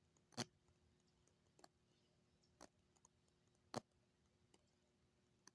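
Near silence broken by a few sharp, isolated clicks, four plain ones about a second apart, over a faint steady hum.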